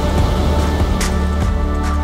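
Background music: held chords over a heavy, steady bass, with a percussion hit about a second in and another near the end.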